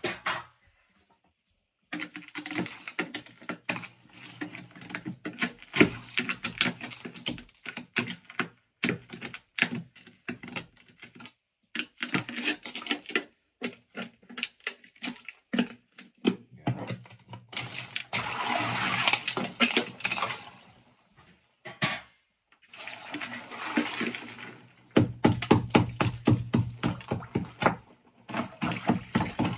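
Ice in a chest-freezer ice bath being broken up by hand: irregular knocks and cracks of tool on ice, with water sloshing and splashing, louder in stretches toward the end.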